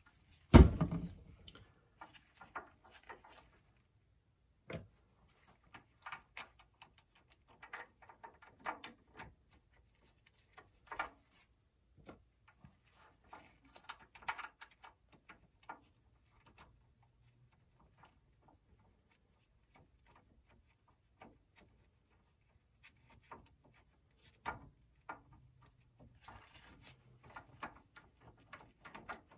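A sharp metallic knock about half a second in, then scattered light clicks and taps from a wrench and metal fittings as the brake line's banjo fitting is fastened to a Brembo brake caliper.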